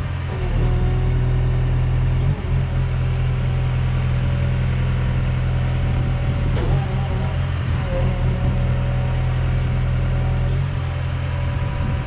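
Gehl V400 skid steer's diesel engine running steadily. A higher whine above it shifts in pitch briefly about half a second in, and again around seven to eight seconds in.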